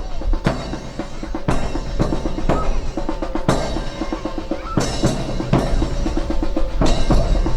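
Drum cadence of snare and bass drum, with fast rapping and sharp, loud strikes about once a second.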